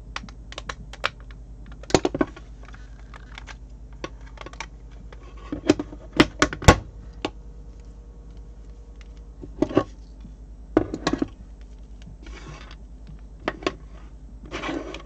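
Scattered clicks and knocks of hard plastic on a wooden desk as hands handle a two-part RJ45 network cable tester and a Cat5/Cat6 patch cable: the plugs come out of the tester, the tester is set down and the cable is laid out. The sharpest cluster of knocks comes about midway, with short rustles of the cable near the end.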